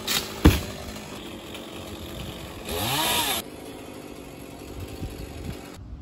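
A chainsaw revs up once in a brief burst near the middle, over a steady lower engine sound. A sharp knock about half a second in is the loudest sound.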